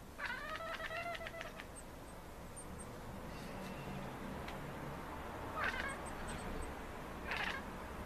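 Maine Coon cat chattering and meowing at birds. A stuttering, pitched call broken into rapid pulses lasts over a second at the start, followed by two short meows near the end.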